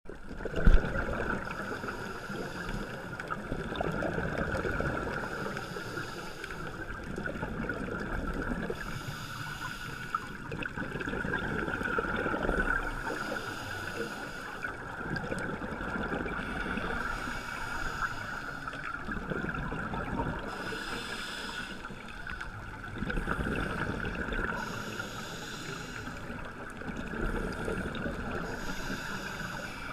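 Underwater sound of a scuba diver breathing through a regulator, with a burst of exhaled bubbles about every four seconds, over a steady high hum. A loud knock about a second in.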